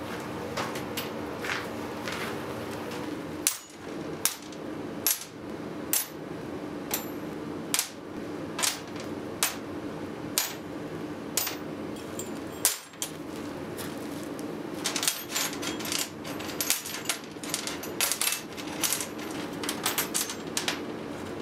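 Small hand-forged steel J-hooks clinking as they are set down one at a time on a steel-topped workbench, about one clink a second, then a quicker run of clinks near the end as they are shuffled and sorted. A steady low hum runs underneath.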